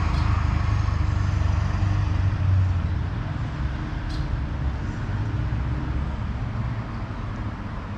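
A motor vehicle passing on a nearby road, a low engine and tyre rumble that is loudest in the first few seconds and then fades. A single short click about four seconds in.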